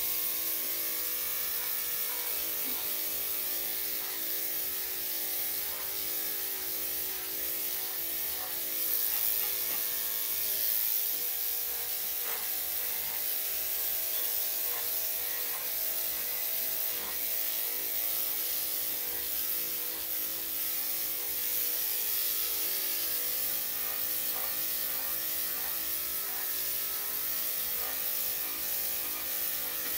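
Electric dog grooming clippers buzzing steadily as they shave through a heavily matted coat.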